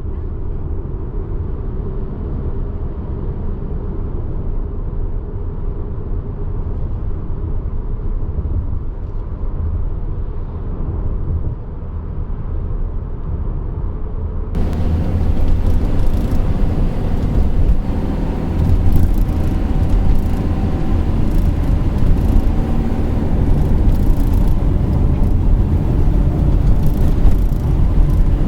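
Cabin noise of a Subaru Forester being driven: a steady low road and drivetrain rumble. About halfway through it turns abruptly louder and brighter, with scattered faint ticks over the rumble.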